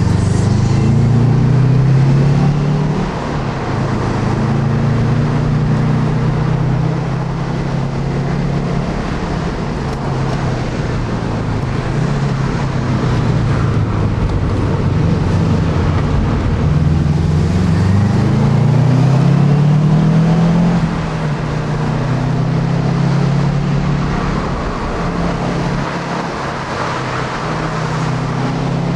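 Subaru Impreza WRX 2.5 L turbocharged flat-four engine driven hard, heard from inside the cabin, its revs repeatedly rising and falling, over steady road noise.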